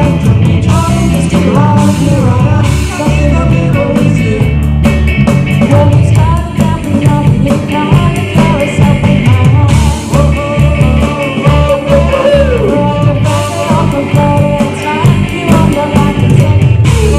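Live rock music with a singer, band and guitar playing loudly during a sound check.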